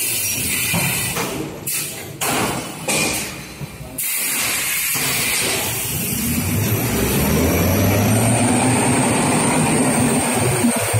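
Toilet paper rewinding machine running, a steady mechanical noise of its rollers and paper web with a low hum. The level jumps up and down a few times in the first four seconds, then runs evenly.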